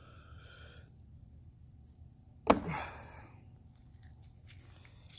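Quiet kitchen handling sounds during lemon prep: one sharp knock about halfway through, then faint scattered clicks.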